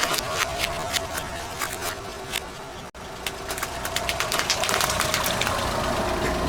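Car tyre rolling over and crushing water balloons, with dense crackling and water gushing out as they burst.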